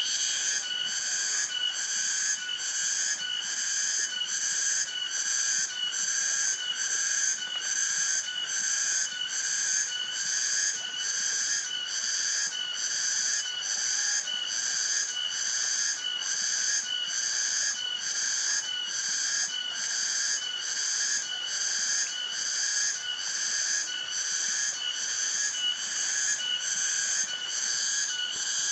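Tonggeret cicada calling: a high-pitched pulsing song, a little over one pulse a second, repeating evenly.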